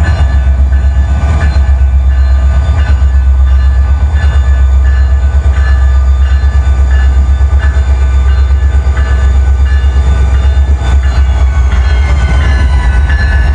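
EMD two-stroke diesel locomotive engine running under a steady deep rumble, with its turbocharger's high-pitched whine on top. Near the end the whine climbs in pitch as the turbo spools up.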